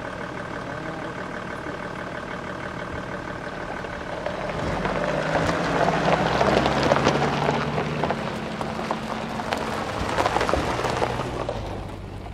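A vehicle passes close by: its low engine note and rattling rise about four seconds in, peak around the middle, and fade away near the end.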